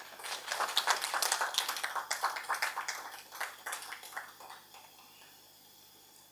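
Audience applauding, the separate claps of a small crowd distinct, thinning out and dying away about five seconds in.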